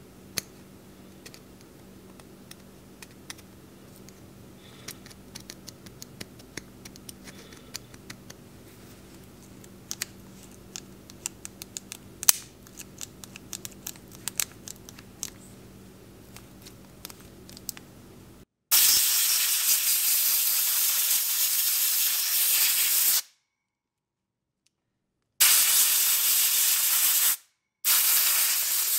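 Scattered light metallic clicks and ticks as a pick and fingers work over a bicycle shifter mechanism. Then, about two-thirds of the way in, comes the loudest part: three long, loud hissing spray bursts aimed at the shifter, each cutting off abruptly.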